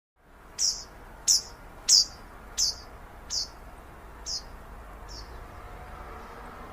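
A bird calling a series of seven sharp chirps, each falling quickly in pitch. The chirps come further apart and grow fainter toward the end, over a steady outdoor background.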